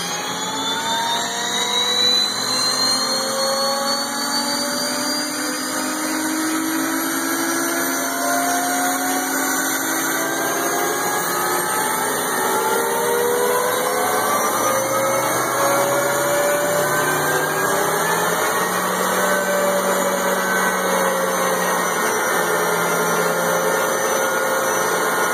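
M1 Abrams tank's AGT1500 gas turbine engine starting up: several whines rise in pitch together as the turbine spools up, then level off into a steady whine over the last several seconds.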